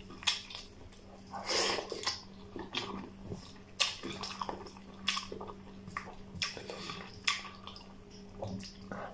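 Close-up wet chewing and lip-smacking of a person eating mutton curry and rice by hand, with sharp mouth smacks and clicks about every second and a breath about one and a half seconds in.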